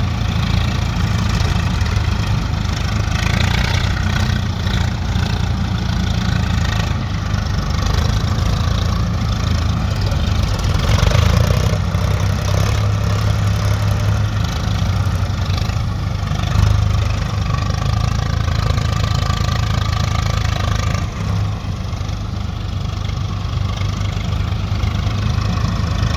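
Diesel engines of a Swaraj 855 tractor working a front soil loader and a Sonalika DI 35 tractor hitched to a trolley, running steadily with a low throb.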